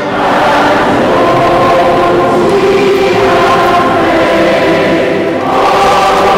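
Choir singing sustained chords in a large church, with a short break between phrases about five seconds in.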